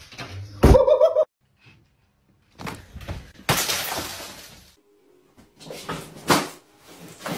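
Something falls and shatters about three and a half seconds in, a loud crash that dies away over about a second. Shorter knocks and thuds come before and after it.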